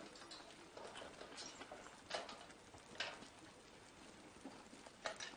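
Faint, irregular clops of a horse's hooves on the road as it pulls a cart at a walk.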